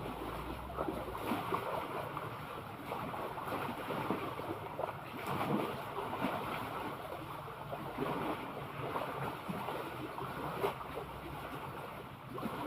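Sea water lapping and splashing in small irregular slaps, with wind rumbling on the microphone.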